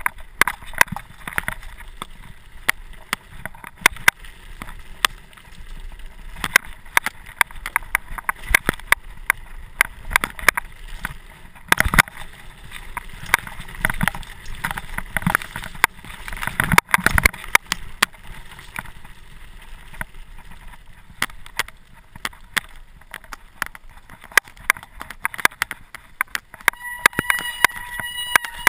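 Bicycle rattling over a rough gravel trail, with frequent sharp, irregular knocks as it jolts over bumps. A brief high squeal near the end.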